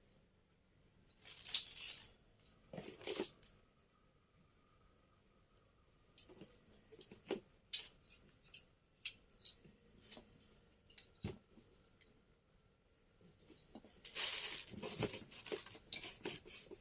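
Hands handling and trying to fit together the parts of a new microphone holder set: short bursts of rustling at about one and three seconds in, a run of small clicks and taps through the middle, and a longer spell of rustling and clicking near the end.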